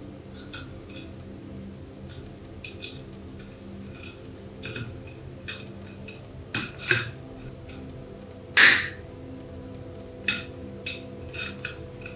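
Light metallic clicks and clinks of a steel cotter pin and hinge pin being worked into a painted steel hinge bracket with a pick and pliers. A dozen or so short, irregular taps that ring briefly, the loudest a longer ringing clink about two-thirds of the way through.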